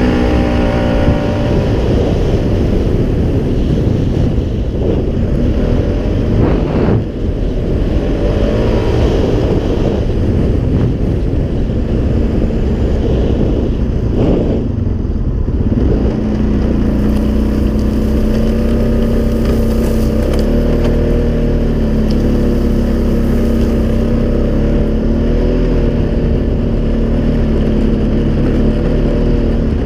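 Polaris Sportsman 570 ATV's single-cylinder engine running under load on the move, with an EPI clutch kit in its CVT. Its pitch rises and falls in the first half, then holds steady from about halfway on.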